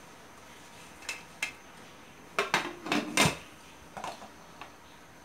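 Pressure cooker lid being fitted and closed onto the pot: a couple of light metal clicks, then a cluster of loud metal clanks and knocks with a brief ring about two and a half to three and a half seconds in, followed by a few lighter taps.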